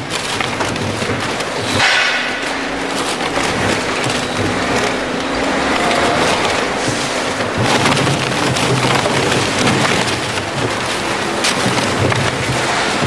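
Grupo SPR RS 85 shear shredder tearing and crushing cardboard: a loud, dense crackling and crunching, with sharp cracks throughout.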